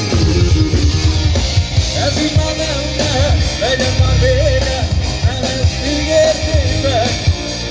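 Live rock band playing: electric guitars, bass, keyboard and drums, with a male lead singer coming in about two seconds in.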